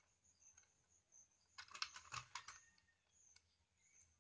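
A screwdriver working a terminal screw on an electrical socket while a wire is fastened under it: a quick run of small metal clicks and scrapes about a second and a half in, lasting about a second. Faint high chirping, like crickets, runs behind it.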